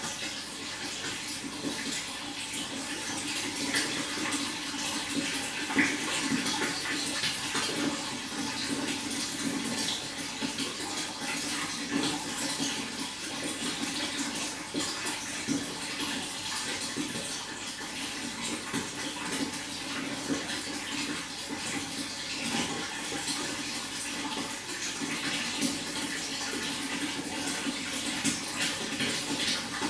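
Running water, a steady splashing flow.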